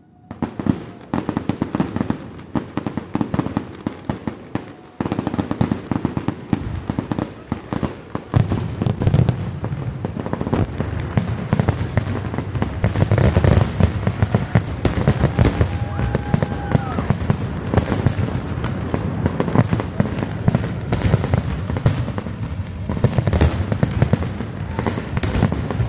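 Rapid barrage of aerial fireworks bursting and crackling, with low booms, the bursts coming thick and fast and growing denser and louder about eight seconds in.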